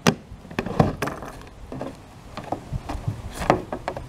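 A plastic tackle box and bungee cords being handled on a plastic kayak deck: a scatter of short clicks and knocks, the loudest about three and a half seconds in.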